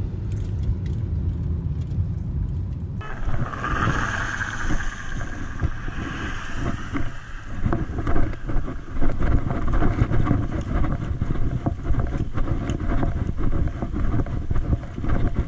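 Car road and engine noise heard from inside the cabin, cut off sharply about three seconds in. Then gusty wind buffeting the microphone, with irregular bumps and knocks from the camera being carried.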